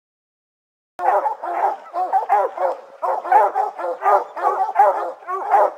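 Several hunting hounds barking hard and without pause, their barks overlapping, starting suddenly about a second in. This is the steady barking of hounds treeing a bear.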